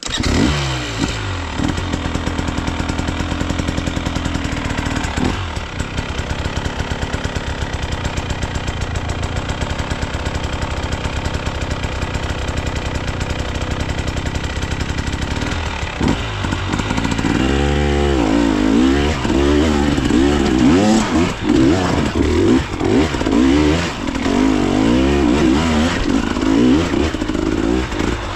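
Enduro dirt bike engine that comes in abruptly and runs at a steady, pulsing low speed. About two-thirds of the way in it is revved hard over and over, its pitch rising and falling as the throttle is worked on a steep trail climb.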